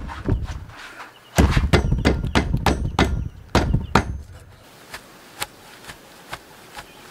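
A hammer striking a wooden log in a quick run of about ten blows, starting just over a second in and stopping after about three seconds, each a heavy wooden knock. A few faint light taps follow.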